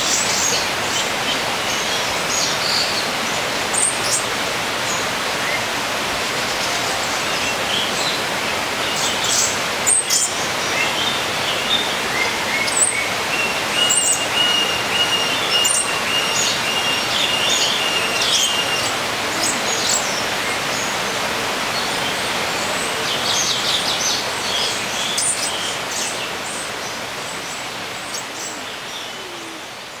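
Birds chirping and calling with short high notes over a steady rushing background noise, with one long held whistle for several seconds in the middle. The sound fades out over the last few seconds.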